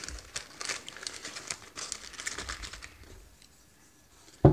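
Plastic and foil ration packaging crinkling and rustling in the hands for about three seconds, then a single sharp thump near the end.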